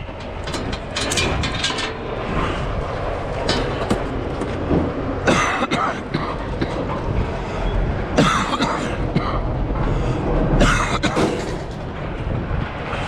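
Scrap metal being unloaded by hand off a truck: loose pieces clank and bang down at irregular intervals, several seconds apart, over a steady low rumble.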